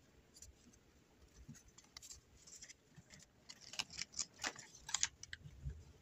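Hands handling a clear plastic stamp and its plastic sheet. A cluster of sharp crinkling clicks and rustles starts about three and a half seconds in and stops near five seconds, followed by a soft thump.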